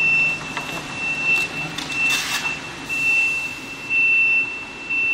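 High-frequency PVC soft crease box machine's warning buzzer giving a high-pitched steady beep, pulsing about once a second. Crinkling of a clear plastic sheet being handled comes in briefly about two seconds in.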